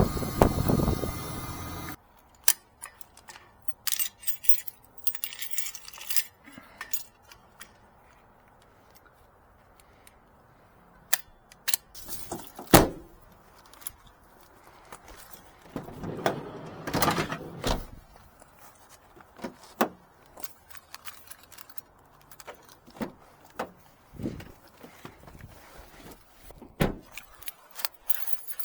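A loud steady rushing noise that cuts off abruptly about two seconds in. Then scattered clicks, clinks and short rattles of small metal objects being handled, like keys or tools, with louder clusters about halfway through.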